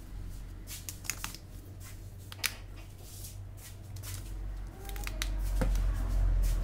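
Scattered small clicks and scrapes of plastic as fingers and a plastic pry card work along the edge of an Oppo A37f smartphone to separate its display. A steady low hum runs underneath.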